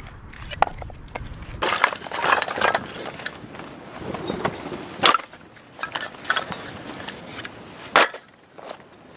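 Split firewood sticks knocking and clattering against each other as they are set down and piled, a series of sharp wooden knocks with two loud single clacks near the middle and near the end. Wind rumbles on the microphone for the first second and a half.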